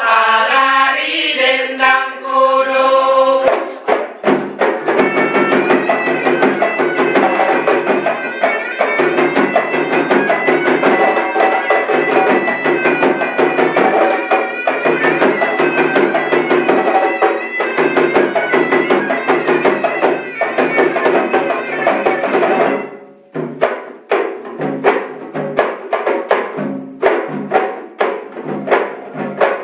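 Traditional South Sulawesi dance music from a live ensemble of hand drums with a melody over them, opening with a few seconds of chanted voice. About three-quarters of the way through the music drops back and the drums carry on alone in steady, spaced strokes.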